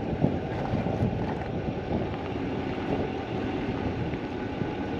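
Wind buffeting the microphone in an irregular rush, with a vehicle running underneath.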